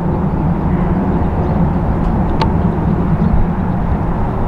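Steady low rumble of a KLM Embraer E190's jet engines as it comes in on final approach, with a single sharp click about halfway through.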